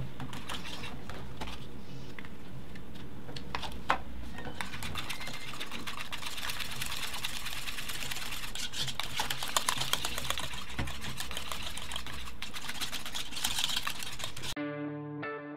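Wire whisk stirring thick pastry cream in a small saucepan: rapid ticking and scraping of the wires against the pan, busier from about a third of the way in. Guitar music comes in just before the end.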